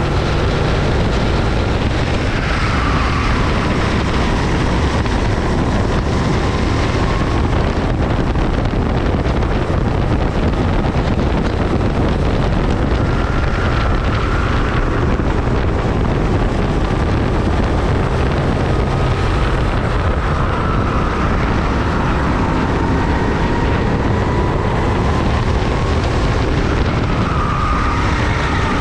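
Racing kart engines running at speed on a circuit, the engine pitch dropping sharply on braking about two to three seconds in and again near the end, and climbing back on the straights, with wind rushing over the microphone.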